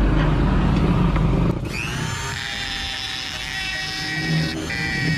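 A power tool runs loudly, trimming metal on the motorcycle cylinder block, then cuts off abruptly about a second and a half in. Background music with long held tones follows.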